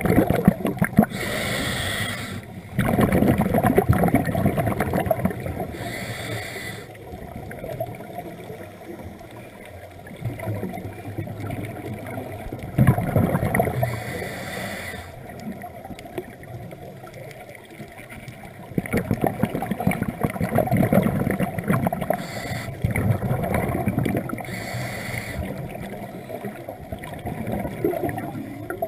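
Scuba regulator breathing underwater: a short hiss on each inhale, followed by a longer burble of exhaled bubbles, repeating every several seconds.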